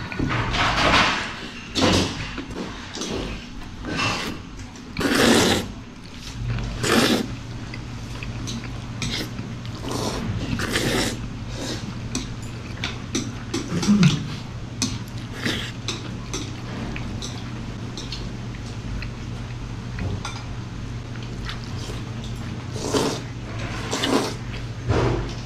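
Jjajangmyeon noodles being slurped from chopsticks: repeated short, loud slurps, several in the first few seconds and a couple more near the end, with chopsticks and bowls clinking. A steady low hum comes in about six seconds in.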